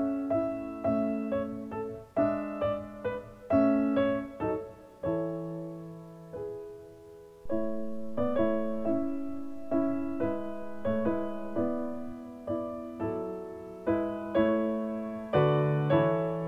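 Background piano music: notes and chords struck one after another and left to ring out.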